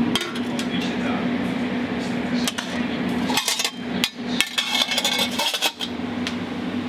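A metal scoop scraping and clinking in a stainless-steel tray, then stainless lids and a spoon knocking as a sauce well is opened, several sharp knocks about two to four and a half seconds in, over a steady hum.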